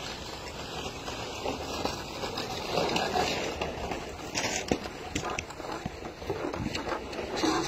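Snow shovels scraping and pushing snow across paved ground, with irregular scrapes and knocks.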